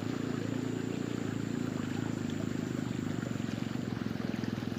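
A small engine running steadily, its low, rapid pulsing even throughout, over a hiss like running water.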